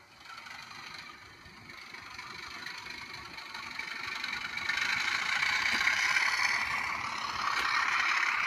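Model railway diesel locomotive running along the track toward the microphone. Its running noise grows steadily louder over the first five seconds, then stays loud.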